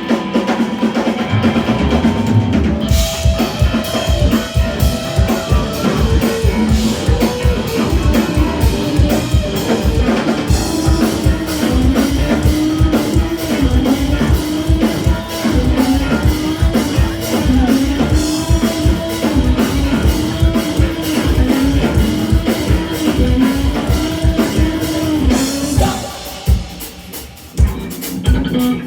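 Live rock band playing a fast instrumental section, driven by a drum kit with rapid bass drum beats under bass and guitar. Near the end the playing thins out briefly, then a few loud hits come back in.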